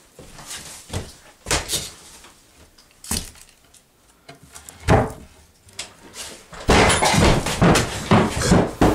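Irregular knocks and bangs, with a loud bang about five seconds in, then a dense run of knocking and rattling near the end.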